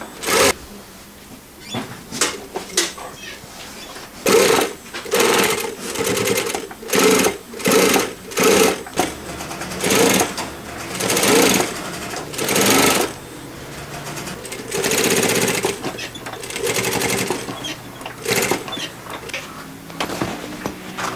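JUKI industrial flatbed sewing machine stitching in short stop-start runs, each a second or less, over a dozen times.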